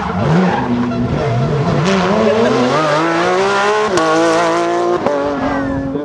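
Porsche 911 GT3 rally car's flat-six engine under hard acceleration out of a corner, with tyre noise as the car slides. The engine note dips, then climbs for several seconds, drops sharply about four seconds in at an upshift, and holds steady after.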